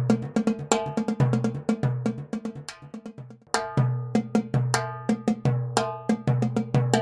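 Tycoon Percussion Gun Powder timbales played in a fast run of ringing strikes, dropping softer around the middle and coming back in with a loud hit at about three and a half seconds.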